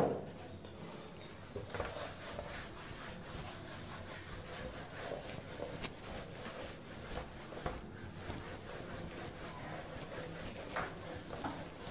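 Handheld whiteboard eraser rubbing across a whiteboard in repeated strokes, wiping off marker writing.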